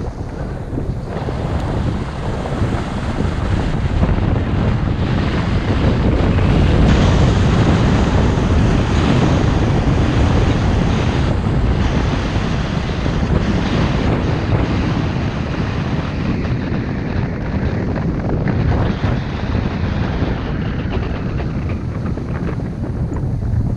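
Wind rushing over an action camera's microphone while skiing downhill, with the hiss of skis sliding on groomed snow. The rush swells a few seconds in and then holds steady.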